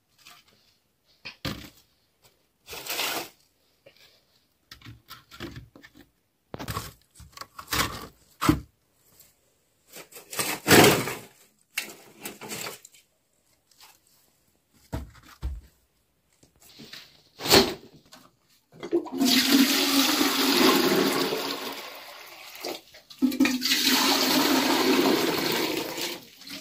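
Scattered knocks and rustles of dry sticks and dried dung cakes being dropped into a tandoor oven. Then, about two-thirds of the way in, water is poured from a plastic jerrycan into a kettle: a long loud pour, a short break, then a second pour.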